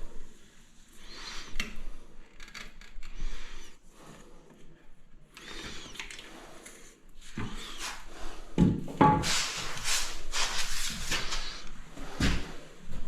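Irregular work-handling noises: knocks, thuds and scraping of tools and materials being moved about, with a busier, louder run of thumps and scraping about nine to twelve seconds in.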